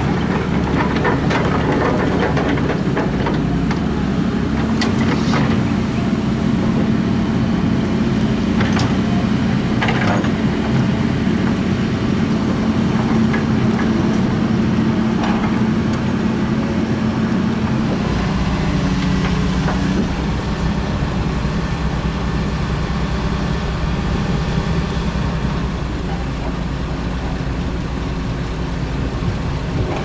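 Zoomlion hydraulic excavator's diesel engine running steadily under load as it digs and loads dirt, with scattered short knocks and clanks from the bucket and dirt. The engine note shifts about two-thirds of the way through.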